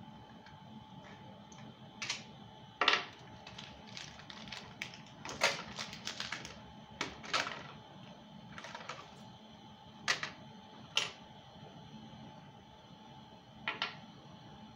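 Irregular sharp clicks and taps of small hard objects being handled, batteries fiddled with by hand. They come thick and uneven through the first half, then as a few single taps and a double click near the end.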